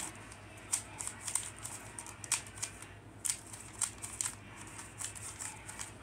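Plastic 3x3 Rubik's cube being turned quickly by hand, its layers clicking in an irregular run of short sharp clacks, a few each second, as a move sequence is repeated to make a pattern.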